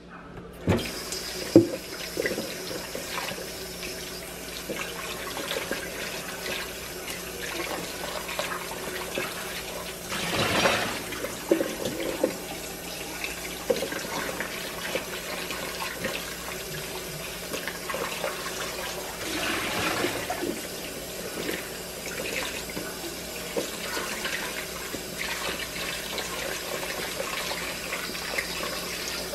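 Kitchen faucet running into a stainless steel mixing bowl in a steel sink as cucumbers are rinsed and rubbed by hand. There are a couple of sharp knocks in the first two seconds, and the splashing swells louder a few times.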